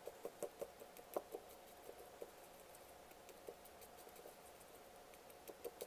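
Faint light clicks and scrapes of a thin tool tapping against the neck of a glass nail-polish bottle as powdered eyeshadow is pushed in, most of them in the first couple of seconds, over a faint steady hum.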